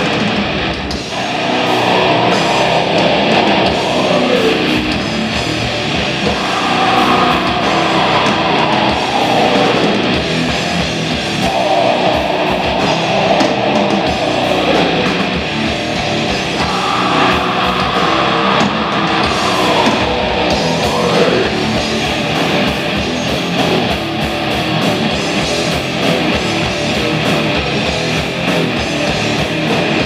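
Live band playing loud electric guitars over drums, with a phrase that comes round about every five seconds.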